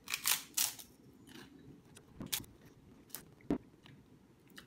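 A puffed rice cake being bitten and chewed, a series of dry crunches: a few close together at first, then single ones spread out.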